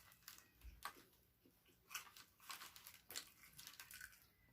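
Near silence with faint, scattered clicks and crackles of someone chewing food.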